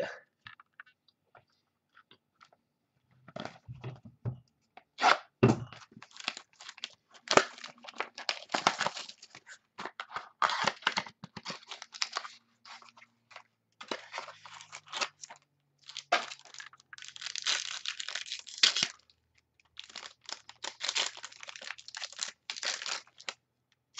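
Hands tearing open and crinkling the wrapping of a trading-card mini box and pack, irregular crackles and rustles starting about three seconds in and going on in dense spells.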